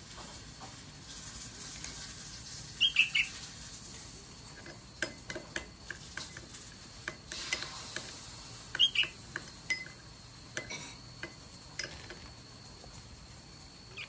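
Fledgling songbirds giving begging chirps twice, each a quick pair of high, falling chirps, amid scattered light clicks and taps of a feeding spoon against a dish.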